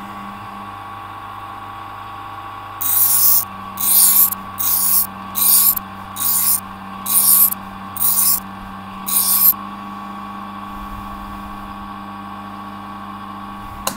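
Motor-driven sharpening wheel running with a steady hum while a knife blade is ground against it in eight short hissing passes about a second apart, regrinding an uneven edge bevel so that it is even along the whole blade. The passes stop about two-thirds of the way through, leaving only the motor humming.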